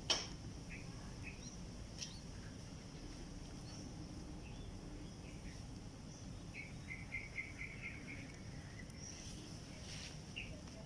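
Short high chirps from a red-whiskered bulbul chick: a few scattered single chirps, then a quick run of about eight chirps about six and a half seconds in. A sharp click comes right at the start, and a steady insect drone runs underneath.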